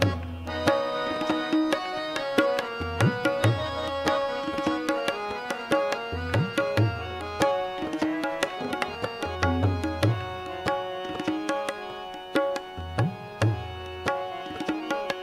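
Instrumental interlude of Sikh kirtan: tabla playing a steady rhythm of sharp strokes, with deep bass-drum strokes recurring every few seconds, under a held melody on harmonium.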